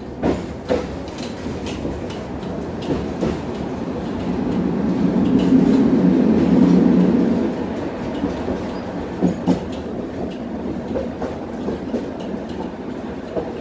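Tatra T6B5 tram heard from inside the car while running along the track: a steady rumble of wheels and running gear, with knocks in close pairs as the wheels pass over rail joints, near the start and again past the middle. For a few seconds in the middle the rumble swells louder, then settles.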